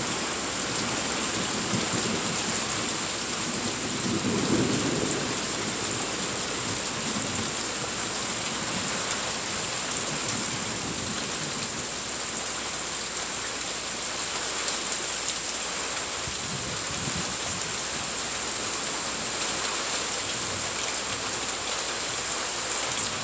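Steady rain falling during a thunderstorm, with a low rumble of thunder swelling about four seconds in.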